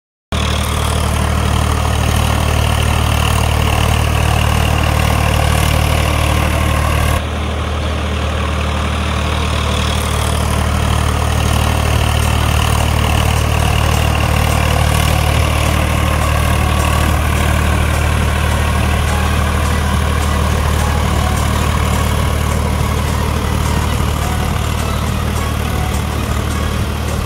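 Swaraj 855 FE tractor's three-cylinder diesel engine running steadily under load as it pulls a rotavator through flooded paddy mud. The sound changes abruptly about seven seconds in.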